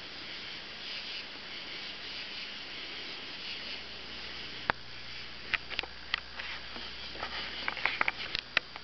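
A moth batting against a window, making light, sharp taps. The taps are scattered at first and come quicker near the end, over a steady hiss.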